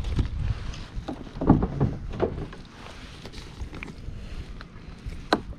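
Scattered knocks, clicks and rustles of gear being handled aboard a kayak, with wind buffeting the microphone. The loudest knock comes about a second and a half in.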